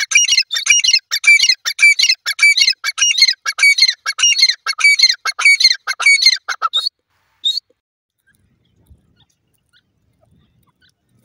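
Grey francolin calling: a fast run of harsh, ringing, repeated notes, about three a second, stopping about seven seconds in, with one more note shortly after.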